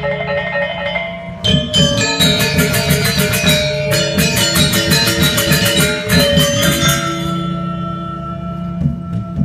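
Balinese gamelan playing live: bronze metallophones (gangsa) struck with mallets in fast, dense patterns over ringing gong and drum tones. About seven seconds in the fast striking thins to held ringing notes, and it picks up again near the end.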